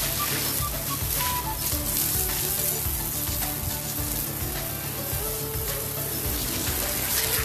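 Steady hiss of water spraying onto wet outdoor floor tiles, with faint background music.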